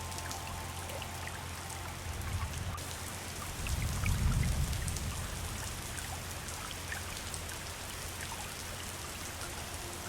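Flowing river water: an even rush with many small splashes and drips, and a low surge of water about four seconds in.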